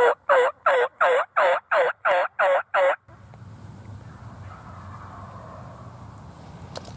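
A hunter's turkey call sounding a hen yelp sequence: nine loud, evenly spaced yelps, about three a second, that stop about three seconds in. The call is aimed at roosted gobblers that had answered the previous sequence.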